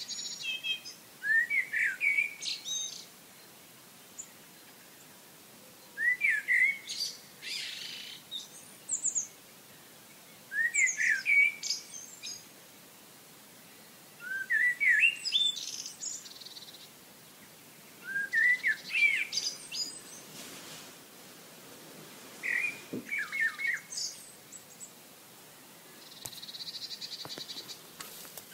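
Songbird singing short phrases of quick, rising whistled notes, one phrase about every four seconds. A brief buzzy trill comes in near the end.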